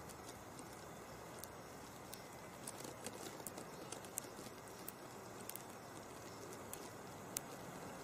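Faint steady background hiss with scattered, irregular small clicks and crackles, a sharper one about four seconds in and another near the end.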